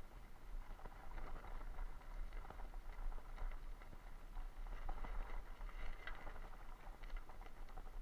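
Bicycle tyres rolling over a gravel dirt track: a continuous crackle of small stones and rattles over a low rumble.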